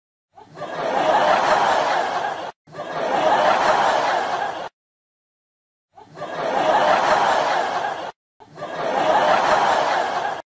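Canned audience laughter from a laugh track, in four bursts of about two seconds each with dead silence between them.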